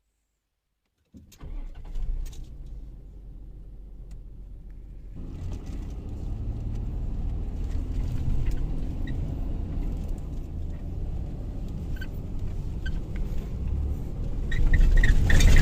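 Car engine starting and then running steadily, getting louder about five seconds in. The car keeps stalling, which the occupants suspect is from running low on petrol.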